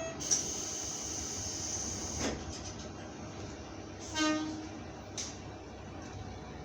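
Train doors closing: a hiss of air for about two seconds that ends in a thud as the doors shut. A short toot follows about four seconds in, over the low, steady running of the diesel railcar.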